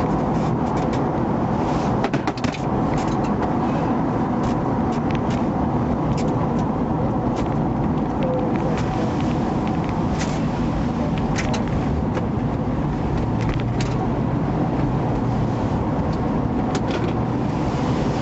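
Police squad car driving, its road and engine noise heard from inside the cabin as a steady rumble, with scattered light clicks and knocks.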